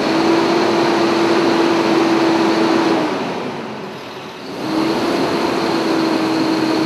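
A steady mechanical drone with a constant hum. It dips briefly about three to four and a half seconds in, then returns at the same level.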